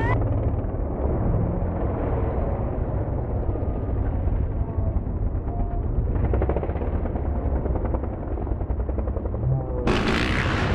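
Freestyle motocross bike engines revving with a rapid rattling pulse, under heavy wind rumble on the microphone.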